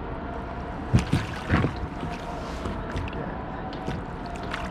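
Water splashing and sharp knocks against a kayak as a hooked northern pike is brought alongside to be landed: three loud knocks about a second in, over a steady background with a faint hum.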